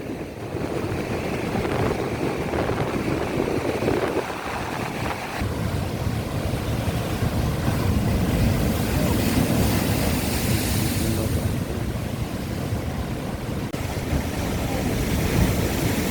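Wind buffeting the microphone over a steady rush of sea surf, with a heavy low rumble.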